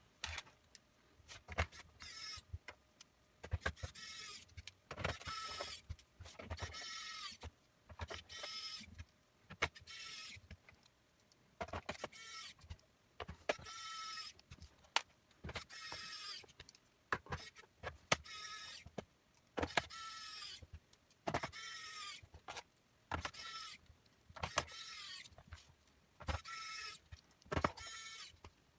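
Small electric screwdriver whirring in many short bursts, about one a second, its pitch dipping as each screw tightens, with sharp clicks between the bursts.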